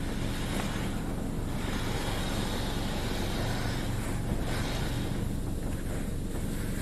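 Monorail automatic car wash machine running over the car: a steady low machine hum, with spray washing over the body in surges that come and go. Heard from inside the car, muffled by the closed windows.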